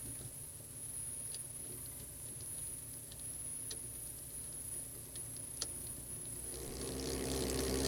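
Chain test rig running Tsubaki low-noise drive chain over its sprockets: a steady motor and chain hum with a few faint clicks, growing louder from about six and a half seconds in as the chain speeds up.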